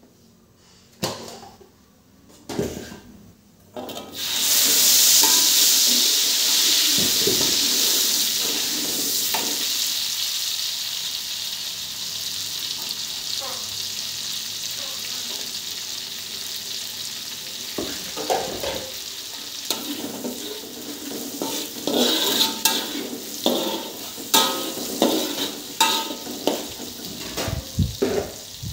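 Red chili sambal paste going into hot oil in an aluminium wok: a few knocks, then a loud sizzle starts about four seconds in and slowly settles to a steady frying hiss. In the second half a metal spatula stirs the paste, scraping and clinking against the wok, most busily near the end.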